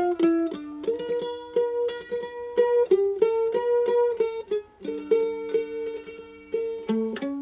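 Mandolin played with a pick: a slow tune of held notes, two at a time, each kept sounding by rapid tremolo picking, with a brief pause just before the middle.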